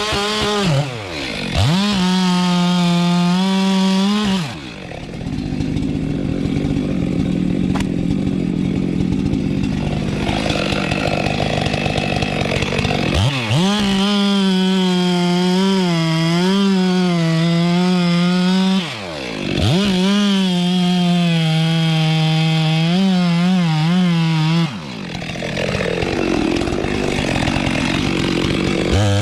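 Chainsaw running at high revs, its high steady pitch dropping briefly several times. Between runs are stretches where the pitch gives way to a coarse, even noise, as when the chain is cutting through wood.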